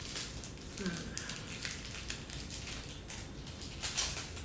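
Plastic wrapper of an individually wrapped white-chocolate biscuit being opened by hand: scattered crinkles and crackles, with a brief murmur about a second in.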